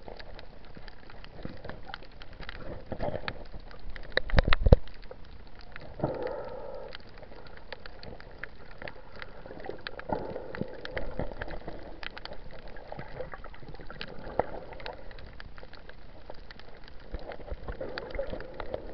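Underwater sound picked up through an action camera's waterproof housing: a muffled wash full of faint crackling clicks, with a loud cluster of knocks about four seconds in.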